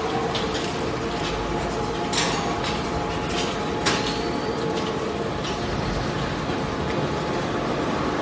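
Industrial plastic shredder line running: a steady machine drone with a faint hum, broken by a few sharp cracks and clacks, the loudest about two seconds in and again about four seconds in.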